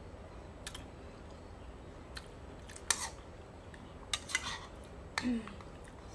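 Eating sounds close to the microphone: a string of short, sharp clicks and smacks from chewing and utensil contact, the loudest about three seconds in, with a brief low falling hum a little after five seconds.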